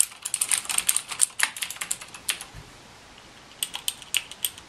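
Fast typing on a mechanical keyboard with clicky Cherry MX Blue switches. After about two and a half seconds it stops, then slower single key presses click about twice a second.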